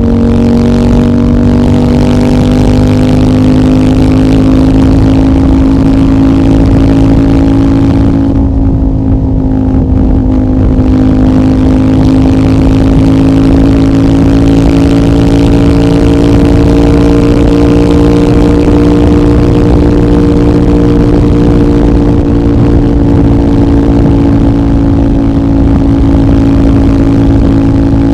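CFMOTO 800NK's parallel-twin engine running through a decat link pipe and the stock muffler, held at fairly steady revs. The pitch dips slightly and then slowly climbs back.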